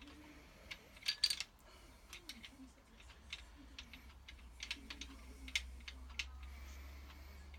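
Light, irregular clicks and taps of small metal parts and tools being handled during hand assembly of engine bolts and O-rings, with a cluster of sharper clicks about a second in. A faint steady low hum sits underneath.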